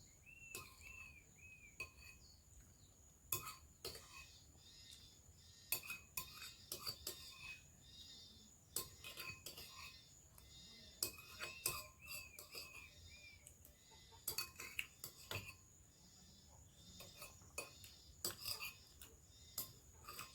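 A spoon clinking and scraping against dishes in scattered sharp taps while eating. A bird chirps several times in a quick run near the start and again about halfway through.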